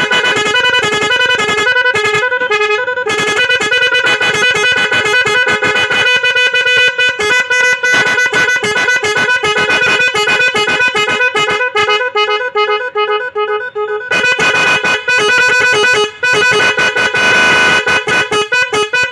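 Electronic musical motorcycle horn playing loud, rapid melodies of stepped beeping notes. The tune changes pattern partway through.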